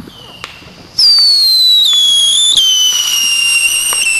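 Small ground firework on pavement. About a second in it starts a loud, shrill whistle that slides slowly down in pitch as it sprays sparks and smoke.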